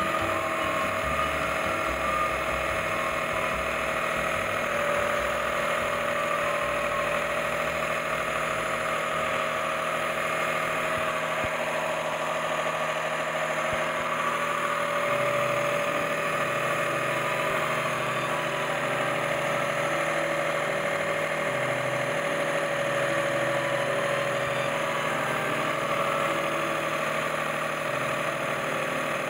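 Daihatsu Terios Kid's small three-cylinder engine idling steadily with the bonnet open.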